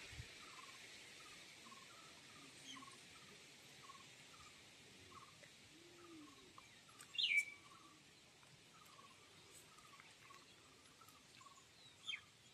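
Faint birdsong: a small bird chirping over and over, about two short chirps a second, with one louder call about seven seconds in that falls in pitch, and a shorter one near the end.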